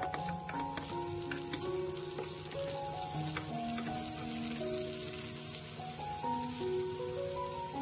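Eggplant slices sizzling in hot oil in a nonstick frying pan as they are turned over with spatulas, with a few light clicks of the utensils against the pan in the first two seconds. A gentle melody of held notes plays throughout.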